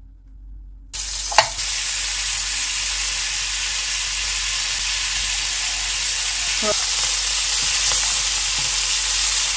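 Butter sizzling in a hot non-stick frying pan: the sizzle starts suddenly about a second in as the butter drops from a spoon, with a single light knock just after, then runs steadily as the butter melts and foams and is moved around with a silicone spatula.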